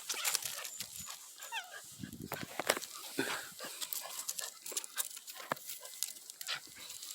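A Neapolitan Mastiff and a cat play-fighting: scuffling and many quick clicks and knocks, with a brief wavering animal cry about one and a half seconds in.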